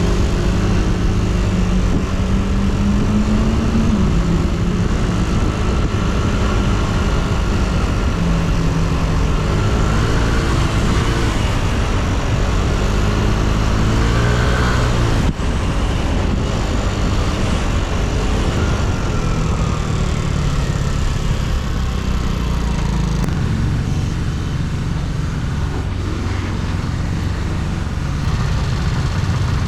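Yamaha Cygnus X scooter's 125 cc single-cylinder engine running during a ride, its note rising and falling as the throttle opens and closes, over steady road and wind noise. There is a brief break about halfway through.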